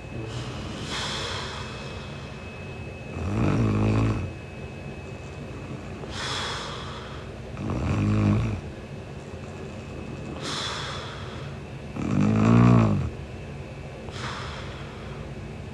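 A sleeping woman snoring: three low snores about four and a half seconds apart, with a softer airy breath between each.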